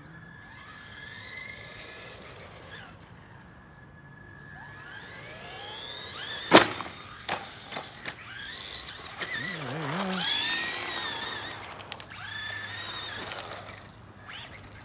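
Brushed electric motor and drivetrain of a Traxxas Bandit RC buggy whining up and down in pitch as it is throttled on and off in several runs. A single sharp knock about six and a half seconds in is the loudest moment.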